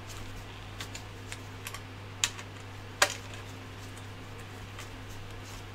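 Scattered small clicks and taps of a hex screwdriver against metal while tightening the power supply's mounting screws, the sharpest one about three seconds in, over a steady low hum.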